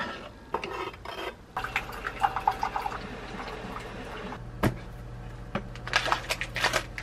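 Dishes and utensils clinking and knocking: a quick run of small ringing taps about two seconds in, one sharp knock near the middle, and more clatter near the end.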